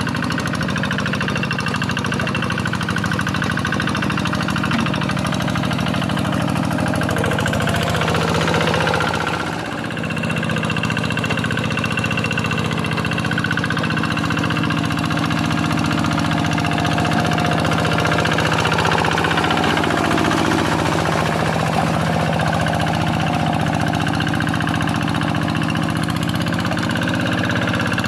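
Single-cylinder Kubota diesel engine of a Quick G1000 two-wheel hand tractor running steadily under ploughing load, with a brief dip in level about a third of the way through.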